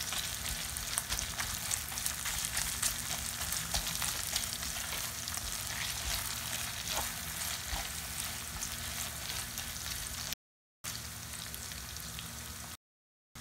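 Grated boiled potato frying in ghee in a pan, a steady crackling sizzle as it is turned with a silicone spatula. The sound cuts out to silence twice, briefly, near the end.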